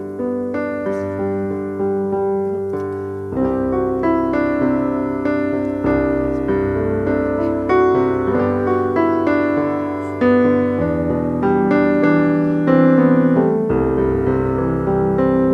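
Yamaha digital keyboard playing a slow piano piece: chords and melody notes struck and left to fade. From about three seconds in it grows fuller and louder as bass notes join.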